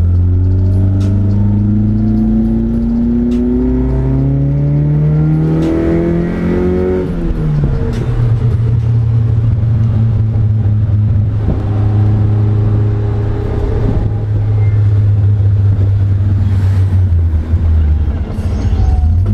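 Drift car's engine pulling through a gear: its pitch climbs steadily for about seven seconds, drops sharply on an upshift, then runs steadily at a lower, even speed.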